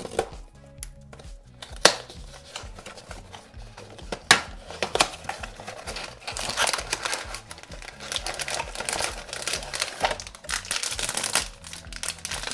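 A small cardboard blind box being torn open, with a few sharp snaps of the card, then from about halfway a foil bag crinkling as it is pulled out and handled.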